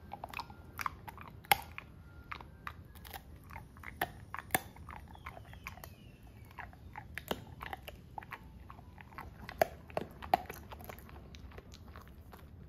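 Border collie chewing a piece of dried meat jerky: irregular wet crunches and clicks of its teeth on the treat, some much louder than the rest.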